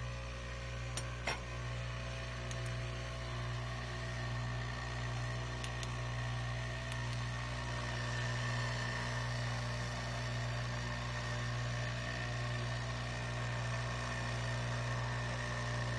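Cheap ultrasonic jewelry cleaner running with steel linear bearings soaking in its tank of alcohol and mineral spirits: a steady low electric buzz with a thin high whine above it. A few faint clicks come through, twice about a second in.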